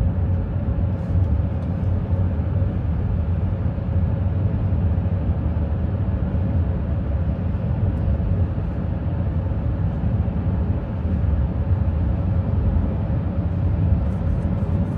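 Steady low road rumble inside a car cruising on a highway, with a faint constant hum.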